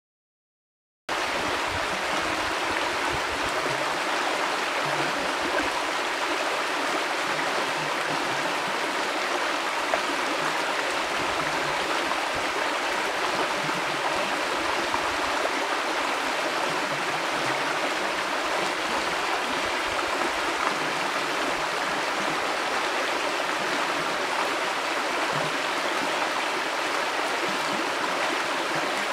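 River flowing: a steady, even rush of water that starts abruptly about a second in and holds unchanged.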